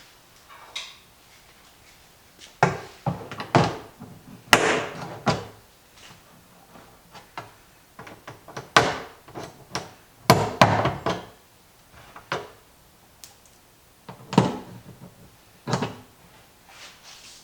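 Irregular knocks, taps and clatters of hand tools on the plastic lid ring of a compost tumbler while old rivets are worked out. Two longer rattling stretches come about four and ten seconds in.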